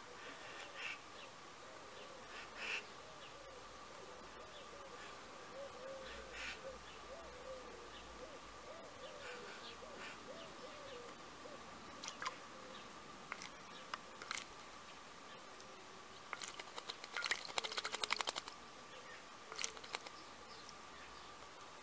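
A female common blackbird bathing in a shallow stone basin: a fast flurry of wing-beat splashes about three-quarters of the way in, the loudest part, followed by a couple of shorter splashes. Before that, only a few faint, scattered ticks.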